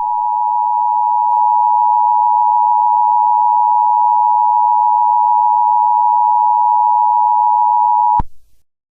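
Emergency Alert System attention signal: two steady tones near 1 kHz, the standard 853 and 960 Hz, sounded together as one harsh alarm tone. It is held for about eight seconds and cuts off abruptly near the end, signalling a severe thunderstorm warning.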